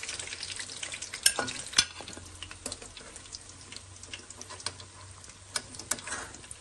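Chicken wings deep-frying in hot oil in a metal wok, a steady sizzle full of small crackles that eases a little after the first couple of seconds. A slotted metal spoon gives a few sharp clinks against the pan as pieces are scooped out.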